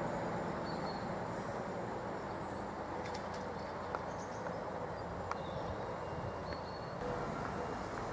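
Steady outdoor background rumble and hiss, with a few faint, brief high chirps and ticks.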